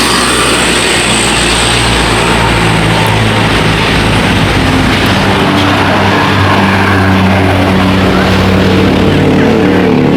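Diesel bus engine running close by, a steady low drone with road noise, its pitch shifting a little in the second half.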